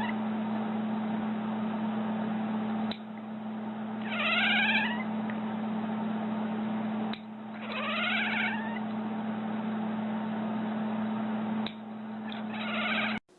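Domestic cat meowing: three drawn-out meows, each about a second long, over a steady low hum and hiss.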